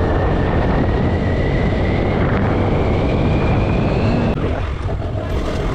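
Honda Grazia 125 cc scooter accelerating, its engine and drive whining in a slowly rising pitch over wind rush on the helmet-mounted microphone. About four seconds in, the whine stops and the sound drops as the throttle is eased.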